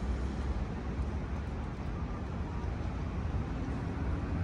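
Steady low rumble of city traffic, an even hum with no distinct events.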